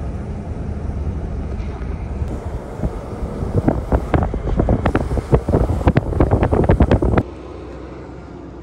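Wind blowing across the microphone with a low rumble. From about three seconds in comes a quick, irregular run of sharp clicks, then the sound cuts off abruptly and gives way to a quieter steady hum.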